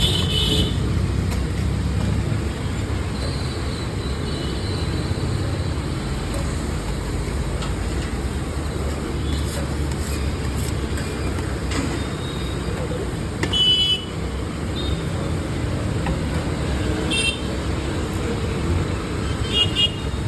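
Busy street traffic noise, a steady low rumble of engines, with a few short horn toots.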